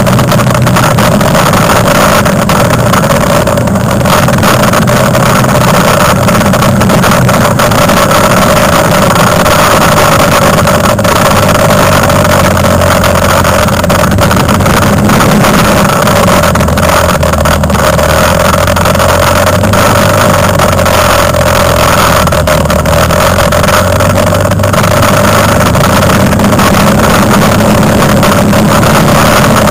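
Quad bike (ATV) engine running under way, heard from on board, loud and close. It runs steadily, and its low note drops for a stretch past the middle.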